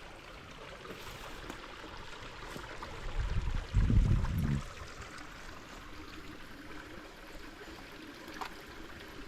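Shallow creek water trickling steadily. About three seconds in comes a low rumble lasting just over a second, louder than the water.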